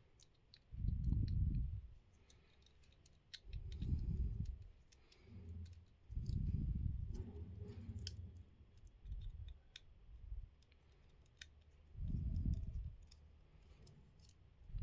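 Small-screwdriver work on a plastic earbud charging case: light clicks and ticks of metal on plastic over repeated dull handling sounds, each about a second long, six or so of them.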